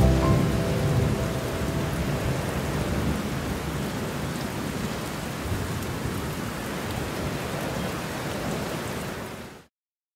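Heavy rain falling steadily on leaves, with a low rumble of thunder in the first second or two. The rain fades out to silence near the end.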